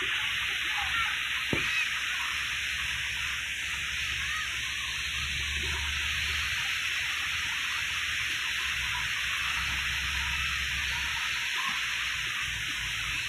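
Flooded, fast-flowing muddy river rushing steadily.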